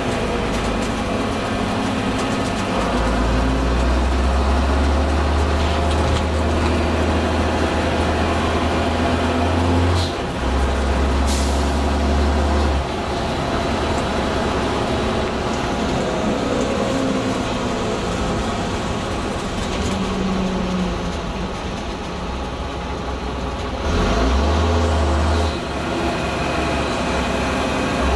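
Leyland Olympian double-decker bus running on the road, its diesel engine note stepping up and down through several gear changes. Around ten and eleven seconds in, two short sharp hisses of air are heard: the 'sneezing' of its gear changes.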